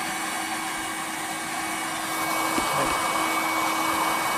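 Heat gun running steadily: a constant blowing rush with a steady hum of one pitch, a little louder after about two seconds, as it heats plastic drain pipe to soften it for bending.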